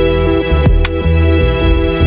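Background music: held chords over a steady drum beat.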